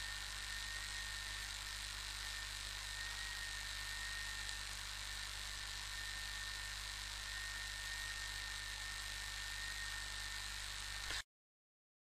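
Steady low electrical hum and hiss with a faint high whine above it, the noise floor of the recording; it cuts off abruptly to dead silence near the end.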